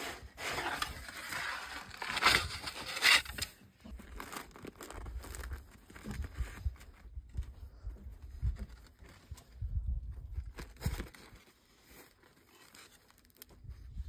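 Freshly baked flatbread being torn open by hand: crackly tearing and crunching of the crust, with a few sharp, loud crackles.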